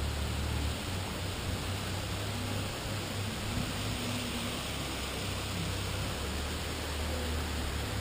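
Waterfall rushing as a steady, even hiss, with a low rumble underneath.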